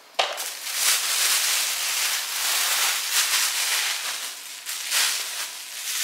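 Thin plastic grocery bags rustling and crinkling as they are handled and rummaged through. The crackly rustle starts just after the beginning and keeps going with small louder surges.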